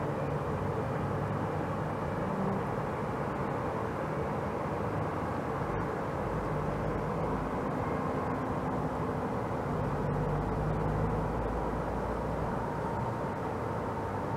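Steady outdoor background noise, a hiss with a low rumble that swells and fades between about six and eleven seconds in.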